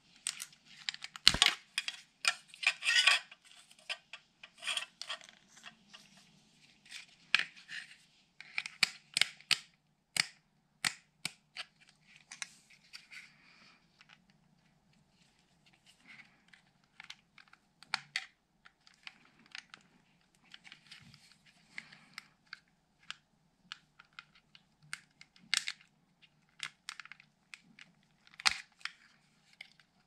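Hands working on a car's window control switch panel: irregular sharp clicks and taps with short scraping and rustling bursts. A knock about a second in is the loudest, and the handling is busiest in the first few seconds and again from about eight to thirteen seconds in.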